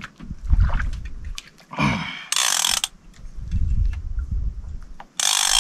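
Accurate Valiant 600NN conventional reel worked under heavy load against a big fish: two short rasping bursts from the reel, each about half a second long, a little over two seconds in and again near the end, over low rumble from handling the rod.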